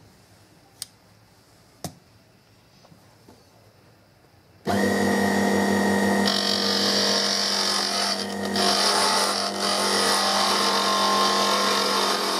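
Two short clicks, then an electric power tool switches on abruptly about four and a half seconds in and runs steadily with a strong hum. A higher hiss grows louder about a second and a half after it starts, as the tool works the wood.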